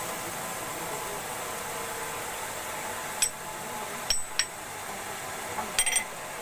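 A hammer with a freshly fitted wooden handle tapping on metal. There is a sharp metallic tap about three seconds in, two more about a second later, and a quick run of taps near the end, each with a short bright ring, over steady background noise.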